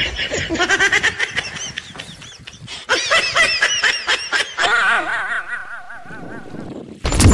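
A group of men laughing in wavering, broken bursts, ended by a short, very loud burst of noise just before the end.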